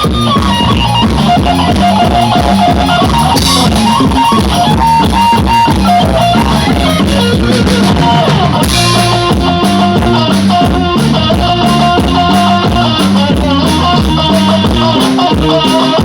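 A band playing music, with drums keeping a steady beat under a melodic lead line and guitar.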